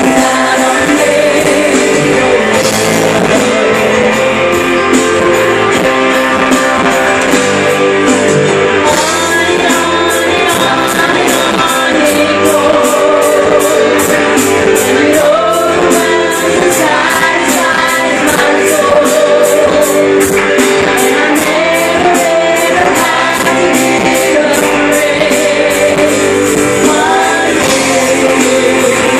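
Live worship band playing: a woman singing lead over guitar, keyboard and drums, recorded on a phone. A steady cymbal beat comes in about nine seconds in.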